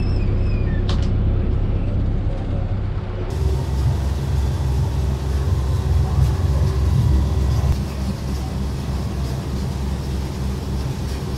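Charter fishing boat's engine running with a steady low drone, over a haze of wind and water noise. About three seconds in the drone turns louder and deeper.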